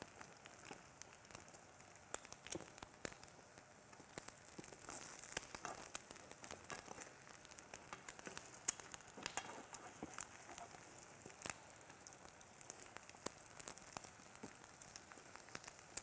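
Beaten eggs frying in oil in a pan: a faint, steady sizzle with many scattered small crackles and pops as the omelette sets.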